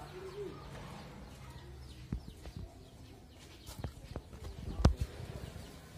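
A few short, sharp taps and knocks, spaced irregularly, the loudest about five seconds in, over faint outdoor background.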